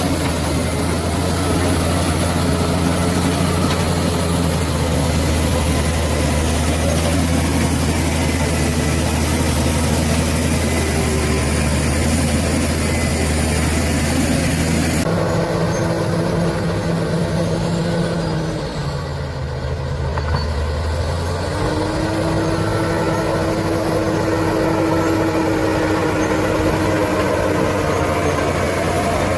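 Bulldozer's heavy diesel engine running steadily. The sound changes abruptly about halfway through; a little later the engine drops for a couple of seconds, then picks up again.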